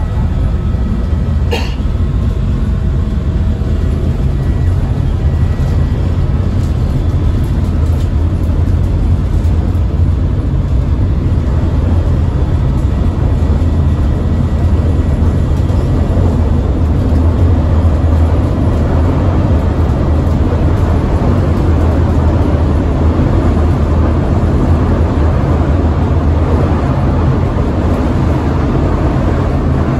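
CTA Blue Line rapid transit car running at speed, heard from inside the car: a steady low rumble of the train on the rails, with one sharp click about a second and a half in.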